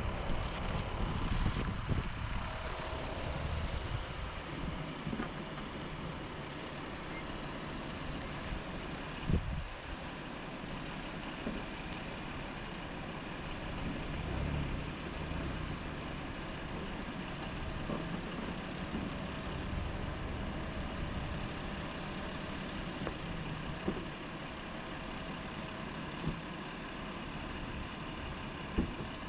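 A vehicle engine idling steadily under a faint hiss, with a few short knocks scattered through.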